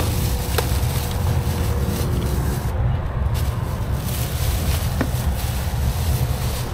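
Steady low rumble of an idling truck engine, with a faint hum above it and a couple of single light clicks.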